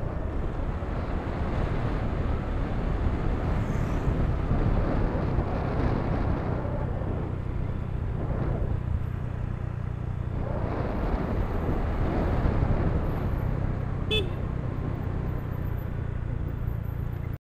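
Motorcycle engine running steadily while riding, heavily mixed with wind rush on the microphone. A brief sharp high-pitched sound cuts through about fourteen seconds in.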